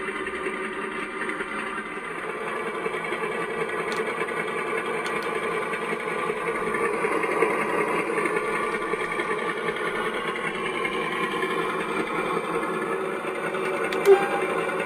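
Sound decoder in an O gauge model of a Class 52 Western diesel locomotive playing its recorded diesel engine sound through the model's small onboard speakers, running steadily. The roof cooling-fan sound, switched on with function F12, joins partway through. A single brief click comes near the end.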